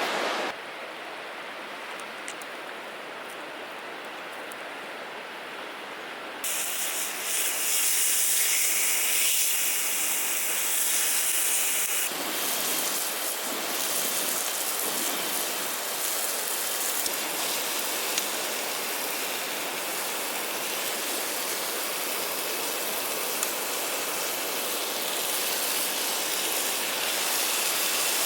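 Water being poured onto an open campfire to put it out: a steady rushing hiss of water and steam. The hiss turns sharper and brighter for several seconds a few seconds in.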